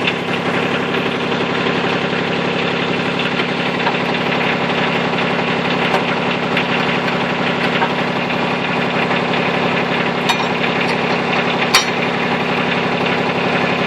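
Tractor engine idling steadily, powering a Woods backhoe, with two sharp metallic clicks near the end.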